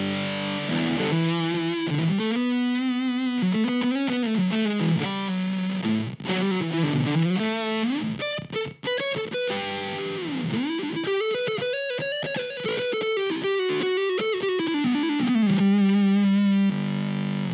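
Distorted electric guitar played through an IK Multimedia X-Drive overdrive/fuzz preset: a lead line of notes that slide and bend up and down in pitch, with sustained, gliding tones.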